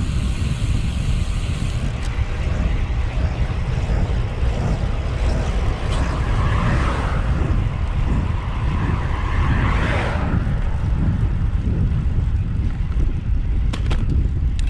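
Wind buffeting the camera microphone while riding a road bicycle, a steady low rumble. A rushing sound swells in the middle and drops off about ten seconds in, and there are two short clicks near the end.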